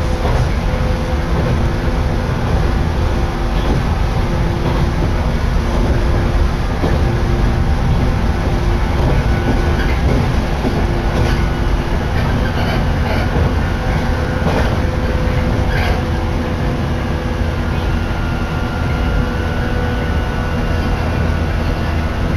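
Shinano Railway electric train running at speed, heard from inside the passenger car: a steady low rumble of wheels on rail with a steady hum and scattered clicks over the track, most of them around the middle.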